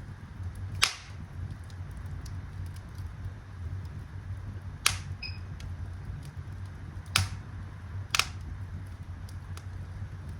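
Wood fire burning in a fireplace: a steady low rumble under small ticks, with four sharp crackling pops from the burning wood.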